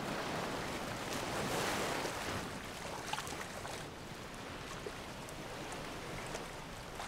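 Ocean surf washing onto a beach: a steady hiss of small waves.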